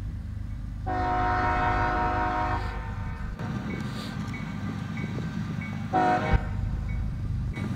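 Diesel freight locomotive's air horn sounding a long multi-note blast starting about a second in, then a short blast near the end, over the steady low rumble of the approaching train.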